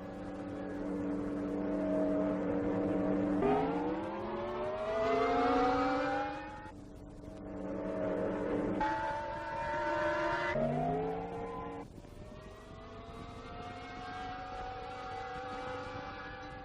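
Engine-like pitched drone that rises in pitch in stages, dropping back and climbing again twice, like a motor vehicle accelerating through its gears.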